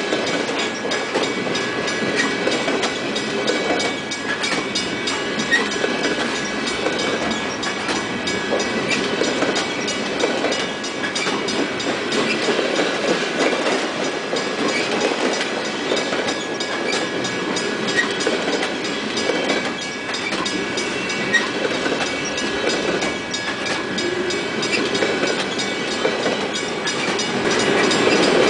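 A freight train's flatcars rolling past: a steady rumble of wheels on the rails with repeated clicking as the wheels cross rail joints, growing a little louder near the end.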